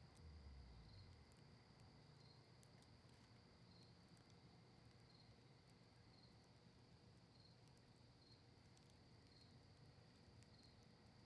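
Faint campfire of cedar leaves and maple wood crackling, with scattered sharp pops. Under it runs a steady thin high tone that pulses about once a second, and a low rumble dies away in the first second.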